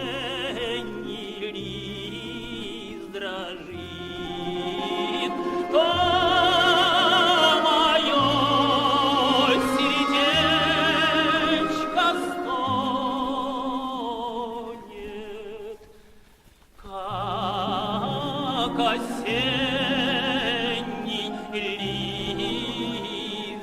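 A male voice singing a Russian romance in an operatic style, holding long notes with wide vibrato over instrumental accompaniment. The music drops away briefly about sixteen seconds in, then the singing resumes.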